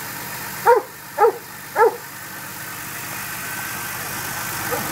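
1995 Porsche 993's air-cooled flat-six idling through its stock mufflers, a steady low drone. A dog gives three short, loud barks about a second in, each about half a second apart.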